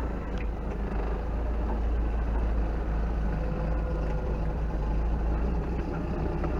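Off-road truck engine running steadily at low revs while crawling or idling.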